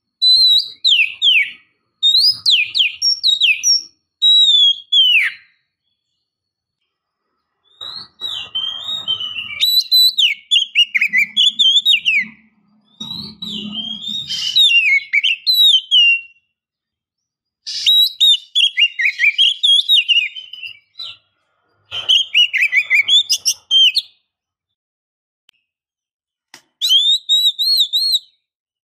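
Female Oriental magpie-robin singing loud whistled phrases of rapid falling notes and warbled trills, in bursts with pauses of a second or two between them. This is the call of a female in breeding condition calling to males.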